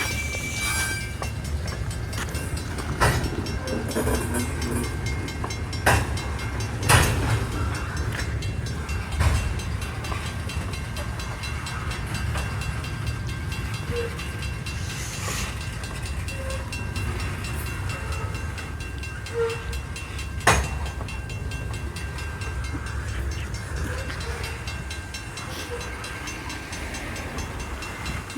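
Coal train rolling past: a steady rumble of steel wheels on the rails, with a few sharp clanks and knocks scattered through it.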